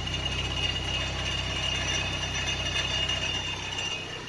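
Lifan X60 idling with a fast metallic rattle from under the car, over a steady engine hum. The rattle is a loose chunk of leftover catalytic converter ceramic knocking about inside the exhaust pipe.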